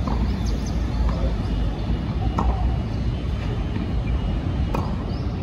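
Outdoor ambience at a tennis court: a steady low rumble, with a few short sharp knocks of tennis balls being struck or bouncing a couple of seconds apart and faint high bird chirps.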